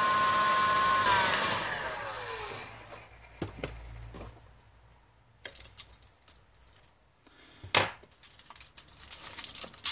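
Hot air gun blowing a steady whine onto a laptop's graphics chip to reflow it. It is switched off about a second in, and its fan winds down in a falling pitch over a couple of seconds. A few clicks follow, a sharp one near the end, with the rustle of aluminium foil being handled.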